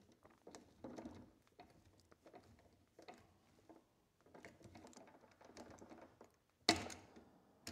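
Small clicks, taps and scrapes of a screwdriver and fingers working a receptacle's terminal screw and wires inside a metal electrical box, with one sharp clack near the end, the loudest sound.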